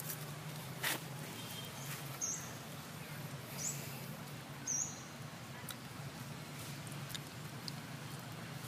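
Three short, high-pitched animal chirps about a second apart, over a low steady hum and scattered light taps.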